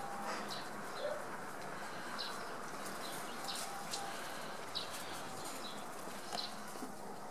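Short, high bird chirps scattered about once a second over a steady outdoor hiss, with a few faint clicks.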